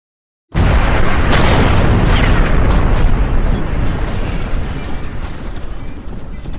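Cinematic explosion sound effect: after a half-second of silence, a sudden deep blast with a long rumbling tail and crackling debris that slowly fades.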